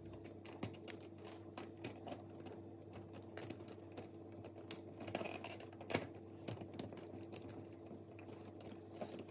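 Small irregular clicks and taps of plastic and wire as stripped wires are pushed into the push-in terminals of a plastic wall-socket mechanism and the mechanism is handled, over a faint steady hum.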